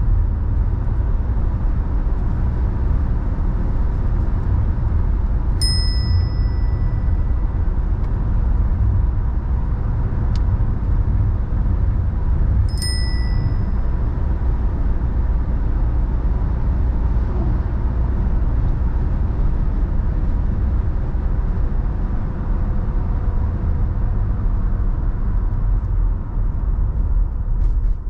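Steady road and engine noise of a car driving along a two-lane highway, heard from inside the cabin, with a strong low rumble. Twice, about seven seconds apart, a short high electronic chime rings out over it.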